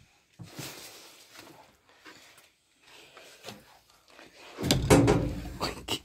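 Quiet rustling movement, then a loud burst of knocking and scraping about four and a half seconds in, like something wooden being moved or bumped.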